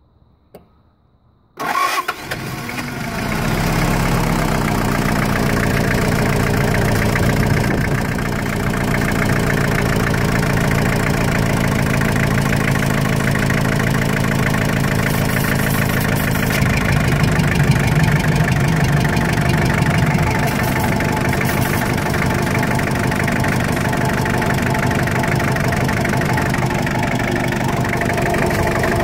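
Toyota 2L four-cylinder diesel in a pickup starting about a second and a half in, catching at once with a loud burst, then settling into a steady idle. The engine has heavy blowby, probably from worn pistons and rings.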